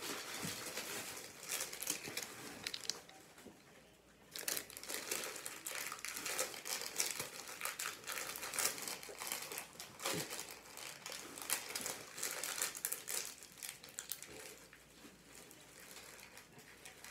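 Plastic snack packaging crinkling as it is handled, in irregular crackles, with a lull about three seconds in and softer handling near the end.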